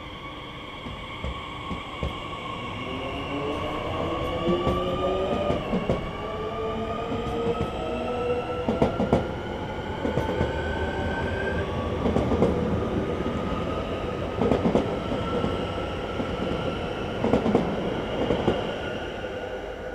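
SNCF Z 50000 (Francilien) electric multiple unit accelerating away from a standstill: its traction motor whine climbs in pitch in several tones, drops back about halfway through and climbs again. Over the rolling rumble come bursts of wheel clatter over rail joints in the second half.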